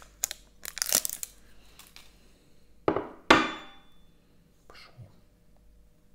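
Sharp taps and clinks of a knife and hands working at a stuck drink-bottle cap to get it open. The two loudest knocks come about three seconds in, the second ringing briefly.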